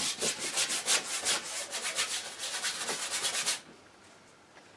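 Bristle paintbrush scrubbing oil paint onto a stretched canvas in quick, repeated back-and-forth strokes while building up a thick paint layer. The scrubbing stops about three and a half seconds in.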